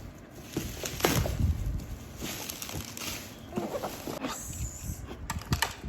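Plastic toy pieces and packaging being handled: rustling and knocking, with a loud knock about a second in and a quick run of sharp clicks near the end.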